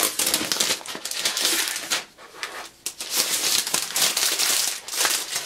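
Protective wrapper being peeled off a new laptop, crinkling and rustling in quick irregular bursts with a brief pause about two seconds in.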